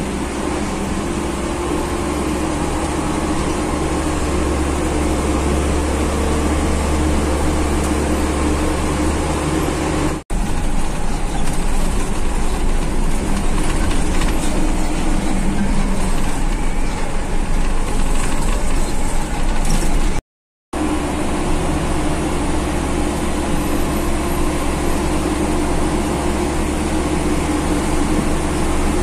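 Mitsubishi bus engine running steadily under way, with road noise, heard from inside the passenger cabin. The sound cuts out briefly twice, about ten and twenty seconds in.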